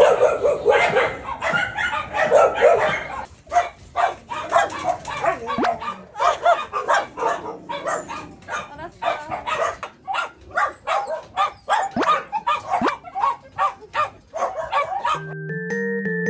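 Several shelter dogs barking continuously, their barks overlapping in a dense, rapid run. Piano-like background music comes in near the end.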